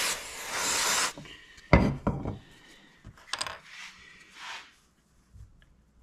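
Aerosol spray can spraying a steady hiss that stops about a second in, followed by a sharp knock on the wooden workbench and a second, smaller one. Then a few light taps and a short rustle as wood pieces are handled and set in place.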